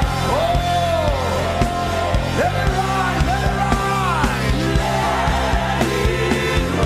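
Live worship band music: steady bass and a regular drum beat under a singer's long, gliding vocal lines.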